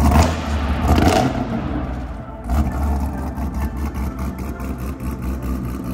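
Supercharged V8 engine of a heavily modified Chevrolet Camaro ZL1 1LE revving, swelling to a peak about a second in. It dips, surges again around two and a half seconds in, then runs on with a pulsing low rumble.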